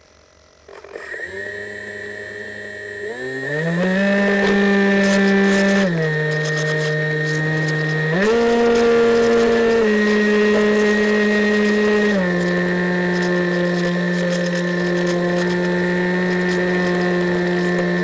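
Electric motor and pusher propeller of a Multiplex EasyStar RC plane, heard through its onboard camera. It spins up about a second in and climbs to a higher pitch around three seconds in as the throttle opens for the launch. It then steps down and up in pitch a few times with throttle changes before holding a steady hum in flight.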